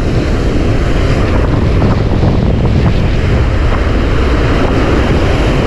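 Strong wind buffeting the microphone over surf washing up the beach, a loud steady rush with no letup.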